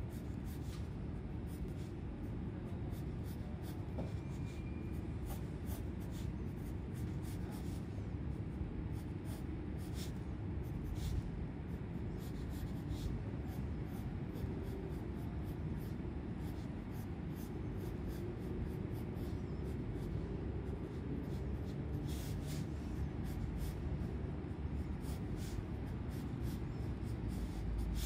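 Wooden graphite pencil scratching across sketchbook paper while drawing, a steady run of light scraping with many short strokes.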